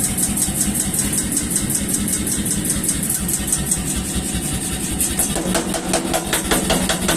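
Power hammer running with rapid, even strokes, about eight a second.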